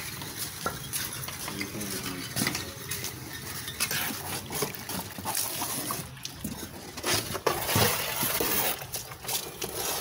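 Hand tool scraping and clinking against the steel pan of a wheelbarrow while scooping out wet cement mortar. It is a run of short scrapes and clinks that grows louder and rougher over the last three seconds.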